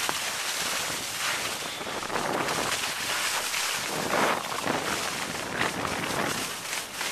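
Wind buffeting the camera microphone while skiing fast downhill, with the hiss of skis sliding on snow that surges louder every second or two, as on each turn.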